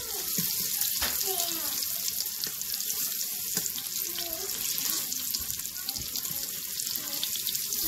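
Ground-beef meatballs sizzling steadily as they brown in an Instant Pot's stainless steel inner pot on the sauté setting, with a few light clicks of a fork against the pot as they are turned.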